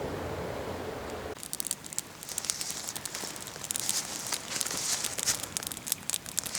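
Dense, irregular rustling and crackling clicks that start abruptly about a second and a half in, after a steadier hiss.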